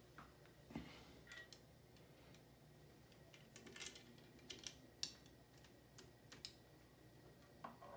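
Near silence, broken by a few faint, scattered clicks and taps of small plastic parts being handled.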